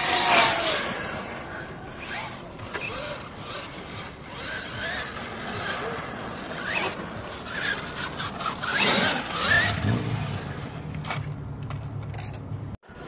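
Traxxas E-Revo 2.0 RC monster truck driving in bursts: its electric motor and drivetrain whine rises and falls as it speeds up and slows, with tyre noise on asphalt. The loudest passes come at the start and about nine seconds in, and a low steady hum follows near the end.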